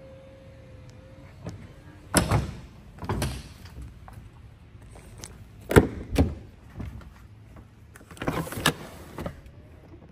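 A car's rear door and its latch being opened and handled: a series of loud clunks and rattles in about five bursts. A faint steady hum stops about a second in.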